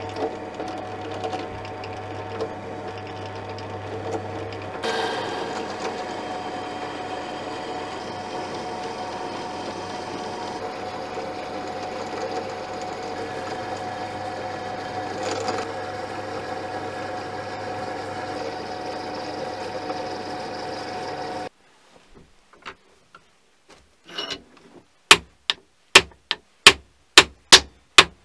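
A drilling machine runs steadily with a twist drill cutting a hole in a metal plate, the cutting getting louder and brighter about five seconds in. The sound stops abruptly, and near the end comes a quick run of about seven sharp knocks.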